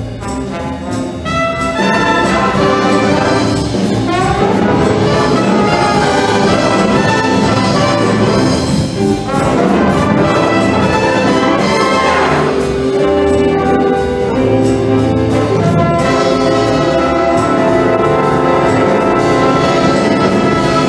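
A wind band led by its brass, trumpets and trombones, playing music, which gets louder about two seconds in.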